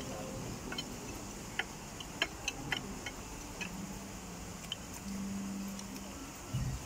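Forks and spoons clinking and tapping against ceramic plates and bowls as people eat: scattered light, sharp clicks, several close together around two to three seconds in.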